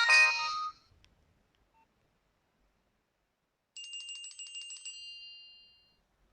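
Nokia 2630 mobile phone playing its built-in tones: a polyphonic ringtone melody ends under a second in. After a pause of about three seconds, a short, high, rapidly trilling tone starts and fades out about two seconds later.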